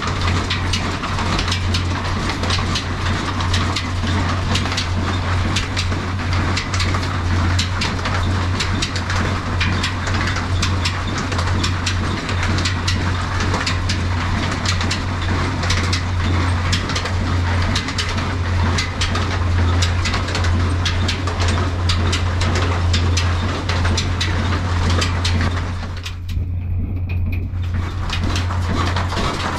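Old diesel engine running steadily and driving a flour mill's line shaft. Its flat belts and pulleys whir and tick, over a constant low hum. The higher sounds briefly drop out about 26 seconds in.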